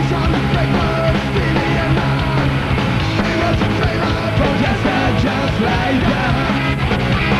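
Punk rock band playing live, loud and steady, with electric guitar, bass guitar and drums, on an old TV broadcast recording.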